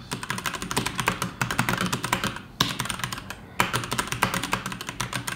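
Keychron C2 mechanical keyboard being typed on, a fast run of key clicks with two brief pauses midway.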